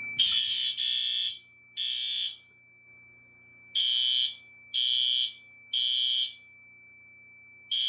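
Fire alarm horns sounding the temporal-three evacuation pattern: three short blasts, a pause, three more, and the start of a third set near the end. A steady high-pitched tone runs underneath. The alarm has just been set off by pulling a manual pull station.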